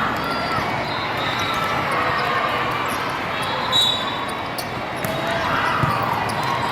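Busy din of volleyball play in a large hall: balls being struck and bouncing, many short knocks over a background of distant voices.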